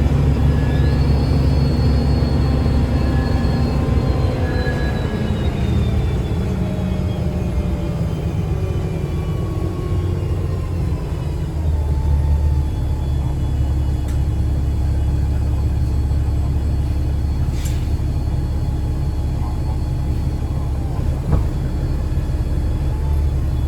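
The 2009 Gillig BRT 40-foot bus with Voith transmission, heard from on board. Its drivetrain whine falls slowly in pitch over the first several seconds as the bus slows, then settles into a steady low engine rumble with a steady hum.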